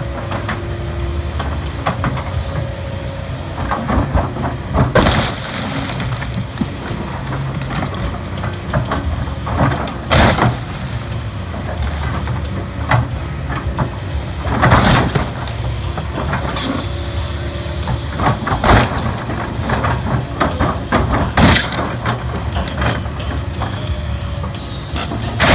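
Heavy diesel construction equipment running steadily while it crushes a car: about six loud crunching crashes of the car's metal and glass giving way, with a burst of hiss a little past halfway.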